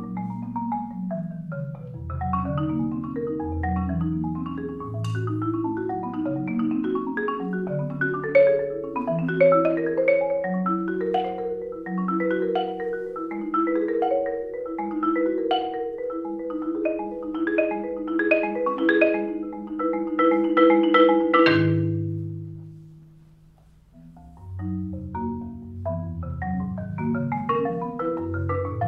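Solo marimba played with mallets: a flowing run of struck, ringing notes over deep bass notes, growing denser and louder about twenty seconds in. Then a low note rings and fades into a brief pause, and the playing starts again near the end.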